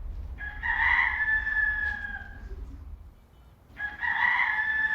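A rooster crowing twice, each a long held call of about two seconds.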